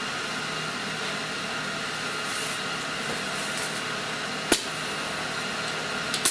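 Steady machine hum with hiss, with one sharp click about four and a half seconds in and two more clicks just before the sound cuts off.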